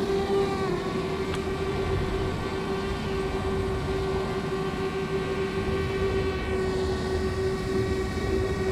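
DJI Spark quadcopter's propellers whining steadily just after take-off, with a brief shift in pitch about a second in.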